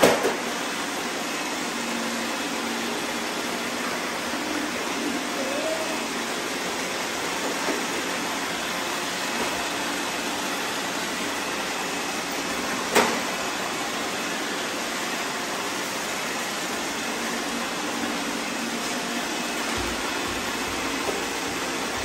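Several robot vacuum cleaners running together on a tile floor, a steady whir of their suction motors and brushes. A single sharp knock about 13 seconds in.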